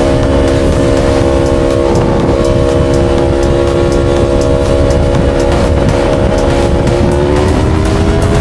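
Yamaha R3's 321 cc parallel-twin engine holding steady revs while riding, a constant pitched drone over a rush of noise, its pitch edging up near the end.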